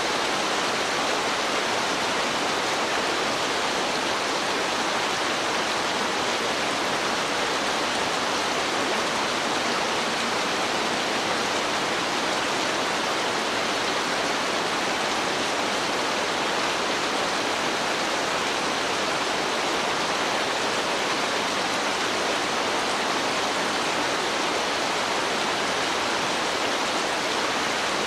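Steady heavy rain: an even, unbroken hiss with no single drops standing out.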